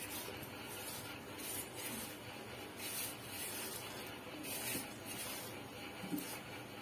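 Faint, soft swishing and rustling of hands rubbing and mixing rice flour in a steel bowl, recurring irregularly about every second or so, as water is worked in a little at a time.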